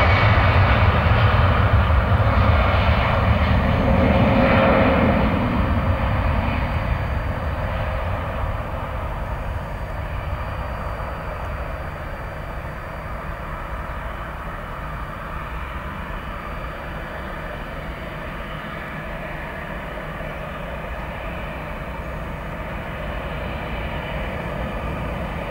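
Airbus A320 airliner's twin jet engines at takeoff power, loud as it rolls past, then fading over a few seconds to a steadier, quieter sound as it climbs away.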